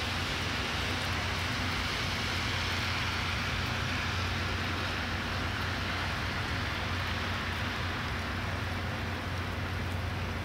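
Steady city traffic noise: an even hiss of tyres on wet streets over a low hum.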